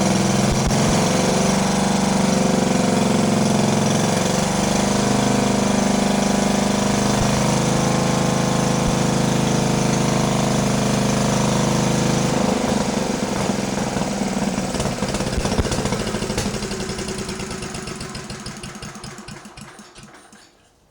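Cast iron Briggs and Stratton single-cylinder engine with a rebuilt Flo-Jet carburetor running steadily at raised speed. About twelve seconds in its speed drops and it fires unevenly, winding down and dying out near the end: it will not keep running once it falls back toward idle.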